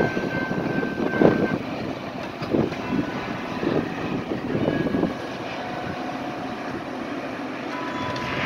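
Metra commuter train pushed by its diesel locomotive, passing at speed and moving away. Wheels and rails give several loud rushes of noise over the first five seconds, then settle into a steadier, quieter rumble as the train recedes.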